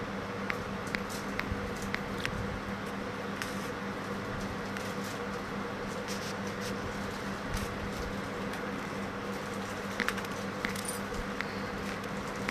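Steady low background hum, with small, sharp clicks and light taps scattered throughout, like small objects being handled.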